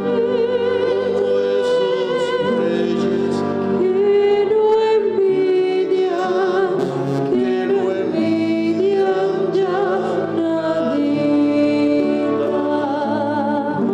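Live acoustic trio: a woman singing with vibrato, accompanied by acoustic guitar and flute, in a slow, sustained song.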